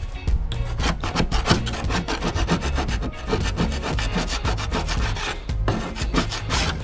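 Hand scraper rasping at wood on a boat's deck in quick, repeated strokes.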